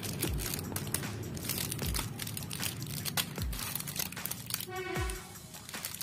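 Plastic chocolate-bar wrappers crinkling as they are handled, over electronic background music with a deep falling bass hit about every one and a half seconds.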